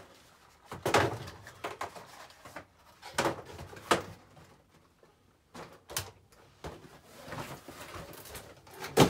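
Cardboard box and inserts scraping, rustling and knocking as a boxed RC truck is pulled free and set on a wooden workbench, with several sharp knocks spread through, the loudest near the end.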